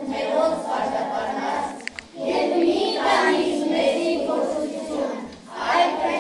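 A group of children's voices singing together in long phrases, with short breaks about two seconds in and again near the end.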